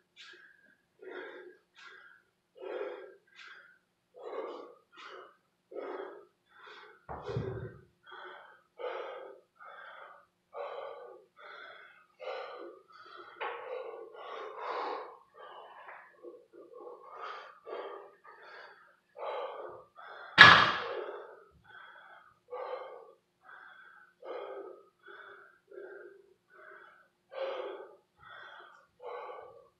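A man breathing hard, short heavy breaths in a steady rhythm less than a second apart: he is out of breath from kettlebell swings and pull-ups. A dull thud comes about seven seconds in, and a loud sharp thump about two-thirds of the way through.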